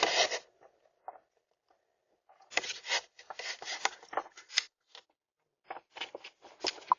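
Irregular rustling, scraping and clicking noises in short clusters with pauses between them, picked up by a doorbell camera's microphone.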